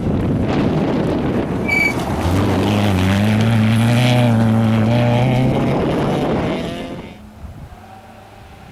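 Rally car on a gravel stage accelerating hard towards and past the listener, tyres and gravel hissing, its engine note climbing and then falling as it goes by. Near the end the sound drops to a faint, distant engine.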